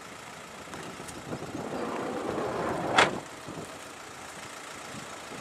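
A motor vehicle passing close by, its noise building for about a second and a half and falling away soon after a sharp knock about three seconds in.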